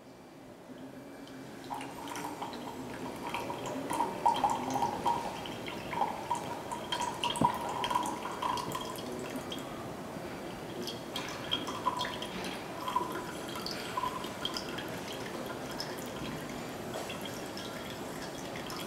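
Distilled water trickling and dripping from an upturned bottle into a glass beaker, with many small irregular splashes and plinks. The water is being added to cassava starch to make up a 3% starch solution.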